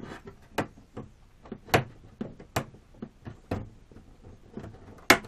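A few sharp, irregular knocks and clicks of a balsa model-plane fuselage and its canopy being handled and set down on a workbench, the loudest about two seconds in and another near the end.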